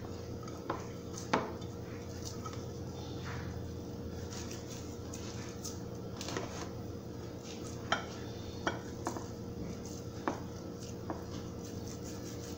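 Occasional light clicks and clinks against glass bowls as cheese sticks are dipped by hand in egg wash and crumb coating, over a steady low hum.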